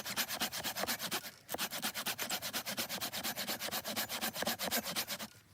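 Hand saw cutting through firewood in quick, even rasping strokes. It breaks off briefly about a second in, resumes, and stops shortly before the end.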